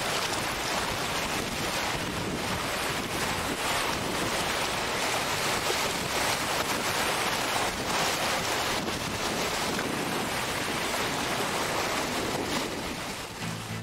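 A steady, loud rushing noise with no clear tone or rhythm.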